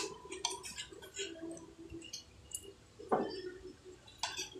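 Someone eating at the table close to the microphone: scattered small clicks and taps with mouth sounds, and a soft thud about three seconds in, over a faint steady room murmur.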